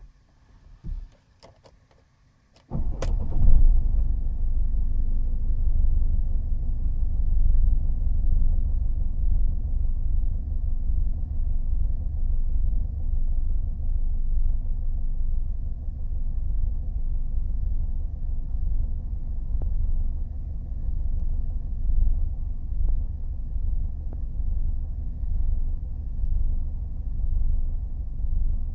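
A Mercedes W210 E220 CDI's four-cylinder common-rail diesel engine starting with a few clicks, then catching about three seconds in and idling. The idle wavers unevenly in level, the rough, irregular idle its owner is trying to diagnose.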